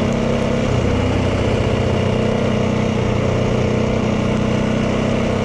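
Yamaha 450 dirt bike's single-cylinder four-stroke engine running at a steady, even pitch while riding along.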